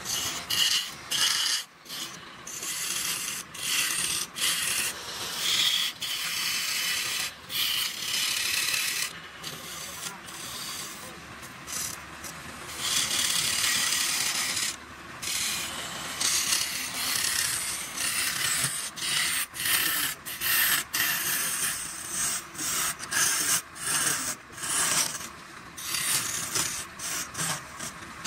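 A flat scraper cutting a pale wooden vessel spinning on a wood lathe: a hissing scrape as shavings fly off. It comes in repeated bursts of a second or two, with short breaks between them.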